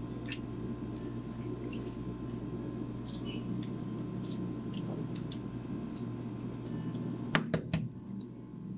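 Balut (duck egg) shells being cracked and peeled by hand: faint scattered clicks and crackles over a steady room hum, with a quick cluster of sharper clicks near the end.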